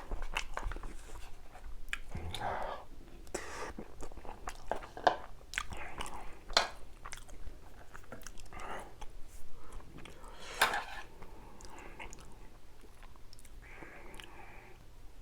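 Close-miked chewing and crunching of a mouthful of food: irregular wet smacks and crisp crunches, a few louder bites among them.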